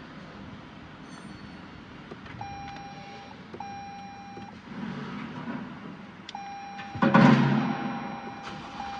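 Electronic beeping at one steady pitch: two beeps about a second long, then a longer continuous tone from about six seconds in, over a low steady hum. About seven seconds in, a loud burst of sound briefly covers everything.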